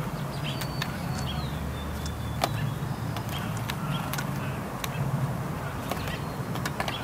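Steller's jay picking through a steel bowl of in-shell peanuts: sharp, dry clicks and clatters of peanut shells knocking together and against the bowl, scattered irregularly, the loudest about two and a half seconds in. A steady low hum runs underneath.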